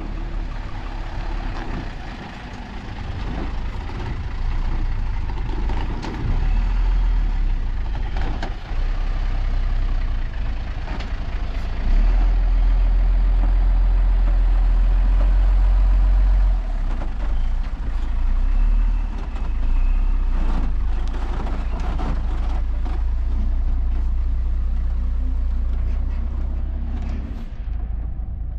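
A motor vehicle running, with a heavy, steady low rumble and scattered knocks and rattles. The rumble is loudest for a few seconds about halfway through and eases off near the end.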